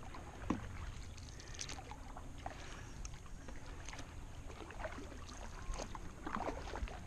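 Wooden canoe paddle dipping and pulling through lake water: small, irregular splashes and drips, over a low steady rumble.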